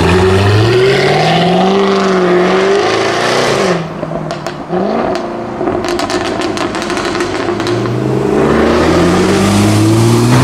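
Jaguar F-Type R's supercharged V8 accelerating hard with rising revs, then lifting off about four seconds in, when the exhaust gives a rapid string of pops and crackles on the overrun. Near the end the engine pulls hard again with the revs climbing.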